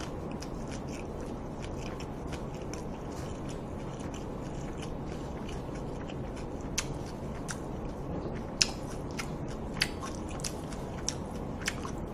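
Close-miked chewing of a mouthful of food, with short wet mouth clicks and smacks that come more often in the second half, over a steady low hiss.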